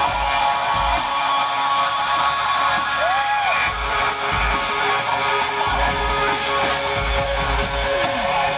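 Live band music in a slow instrumental passage: electric guitar with held notes and a few sliding pitches, over irregular low thuds.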